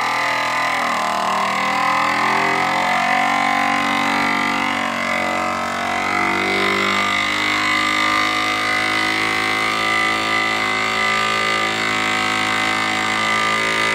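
Ziploc V203 vacuum sealer pump running, drawing the air out of a mason jar through a FoodSaver jar sealer lid and hose. Its note wavers and shifts for the first several seconds, then settles into a steady hum. The owner takes that steady noise as the sign that the air has been sucked out and the jar is ready.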